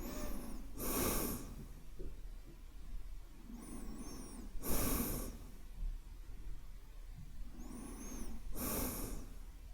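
A man's slow, calm breathing, three full breaths about four seconds apart, each a soft inhale followed by a louder exhale.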